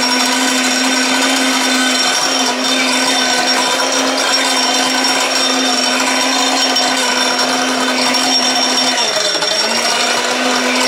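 Mixer grinder motor running at high speed, grinding hard lumps of pink rock salt into powder: a loud, steady whine over a gritty rattle. Near the end the motor's pitch briefly drops under the load and climbs back.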